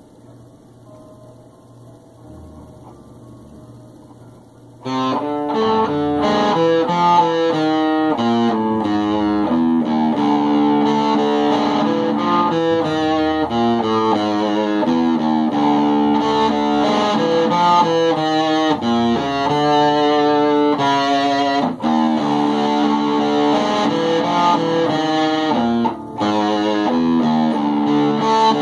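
Electric guitar, a Fender Telecaster, playing a metal riff through distortion, starting suddenly about five seconds in. Before it there is only a low amplifier hum with a few faint notes.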